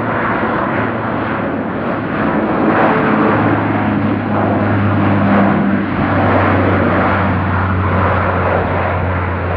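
Bombardier airliner's engines at takeoff power as it takes off and climbs away: a loud, steady rushing roar with a low steady hum beneath, growing louder about two and a half seconds in.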